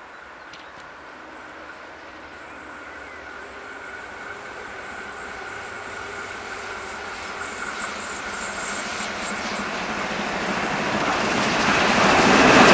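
A class 01 express steam locomotive hauling a passenger train approaches and grows steadily louder, with the rumble of the train rising until the engine draws level near the end.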